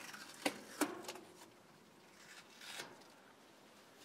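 Cardboard stencil being handled and pulled away from a wall: a few short crisp rustles in the first second, then a softer scrape later on, otherwise quiet.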